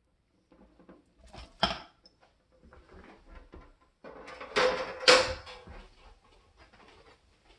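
Kitchen handling sounds as a seared chuck roast is moved onto a plastic cutting board: a sharp knock about one and a half seconds in, then a louder cluster of knocks and clatter around five seconds in.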